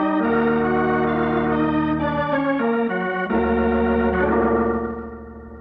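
Organ music bridge: held chords that change a few times, then fade out near the end, marking a scene change in a radio drama.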